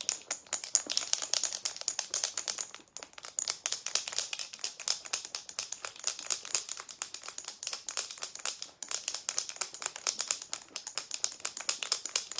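Glass marbles rattling and clacking inside a lidded jar of cream being shaken hard, a dense loud clatter of many quick knocks with a couple of brief breaks. The cream is still liquid, not yet thickened to whipped cream or butter.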